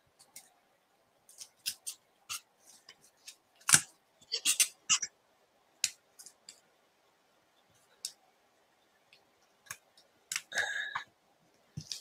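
Paper and cardstock being handled and pressed down on a desk: scattered taps, clicks and short rustles, with a sharp click about four seconds in, a flurry of rustling just after it, and another burst near the end.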